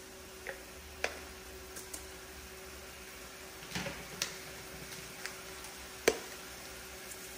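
Seasoning bottles being picked up and set down on a granite countertop: a handful of sharp, separate clicks and taps, the loudest about six seconds in, over a faint steady hum.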